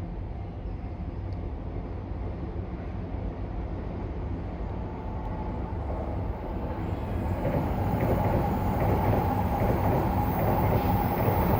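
N700A Shinkansen high-speed train approaching: a low rumble builds from about seven seconds in into a loud rush of wheel and air noise.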